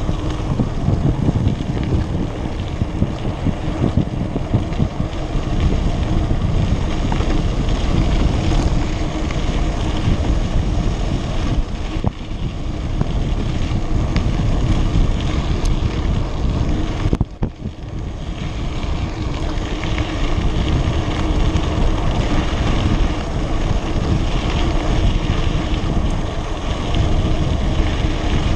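Wind buffeting the camera microphone as a mountain bike rolls down a dirt road, with a steady low rumble from the tyres on the packed dirt. The noise drops briefly a little past the middle.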